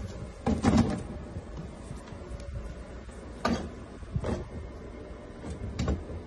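Wooden kitchen cabinet door knocking against its child-safety latch as a Labrador noses and pushes at it, a handful of short knocks.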